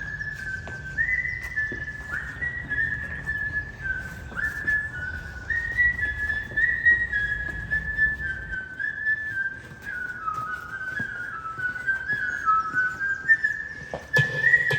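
A whistled melody in the music track: one clear tone stepping through a tune note by note, many notes sliding up into pitch. Near the end other low sounds come in as the music changes.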